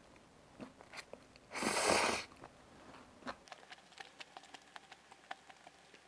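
A person slurping up a mouthful of glass noodles (japchae) in one short loud slurp about a second and a half in, then chewing with a run of small clicks and mouth smacks.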